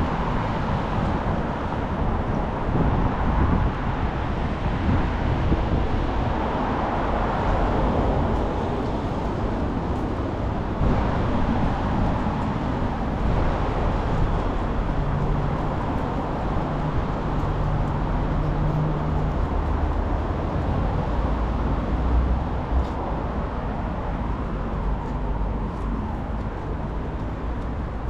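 Street traffic noise: a continuous rumble of passing vehicles, with a steady low engine hum for a few seconds around the middle.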